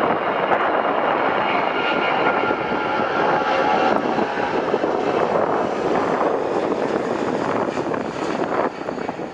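Airbus A340-200's four CFM56 turbofan engines at high thrust as the jet runs down the runway on its takeoff roll: loud, steady jet engine noise with a faint high whine over it.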